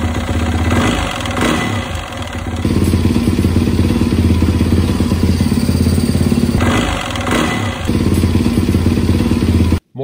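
2017 Yamaha WR450F single-cylinder four-stroke engine running, at first with a clattering knock from a worn-out piston rocking in its cylinder (piston slap). About two and a half seconds in it changes to the same engine running steadier and quieter with a new piston and cylinder fitted.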